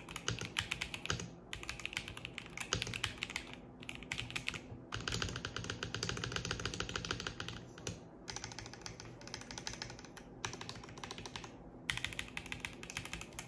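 Typing on an Akko 5075S mechanical keyboard with Leobog V4 switches: runs of rapid keystroke clacks, broken by short pauses every second or few.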